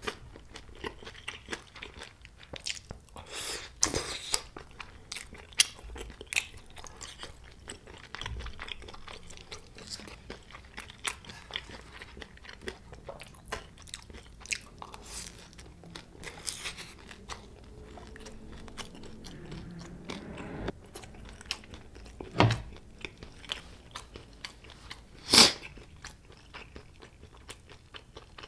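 Close-miked eating sounds: a person biting and chewing deep-fried Korean snacks (twigim) and tteokbokki rice cakes, with crunching and many small sharp clicks and crackles, two louder ones near the end.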